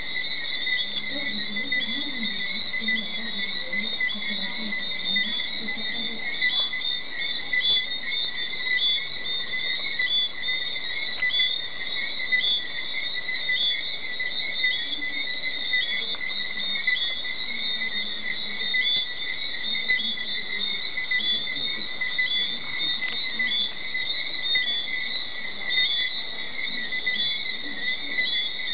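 Tropical night chorus of crickets and other insects: a dense, steady chirring made of many overlapping repeated chirps, unbroken throughout.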